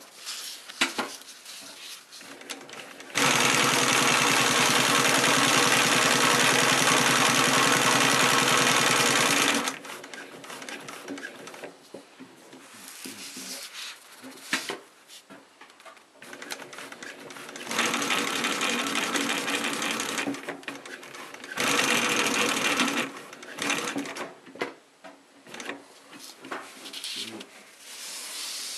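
Industrial upholstery sewing machine (WF-925) stitching through thick layers of padding in three runs: one steady run of about six seconds, then two shorter runs later on. Between the runs come quieter clicks and handling of the work.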